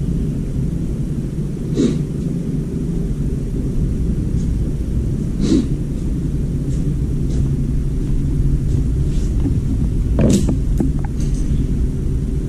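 Steady low machine rumble, with a few short knocks and scuffs about two, five and ten seconds in.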